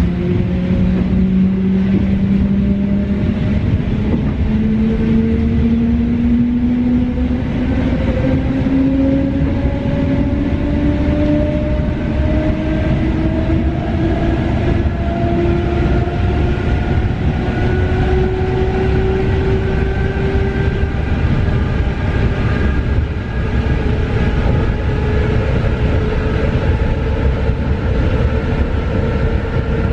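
Inside a carriage of an EN71 electric multiple unit picking up speed: the traction motor whine rises steadily in pitch for about twenty seconds over a constant rumble of wheels on the track, then breaks off and settles into a steadier tone.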